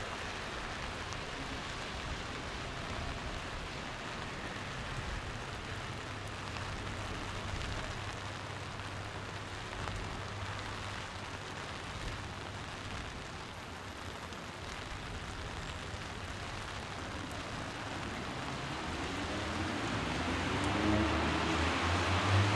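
Steady rain falling, an even hiss. Near the end a vehicle approaches, its engine note rising and getting louder.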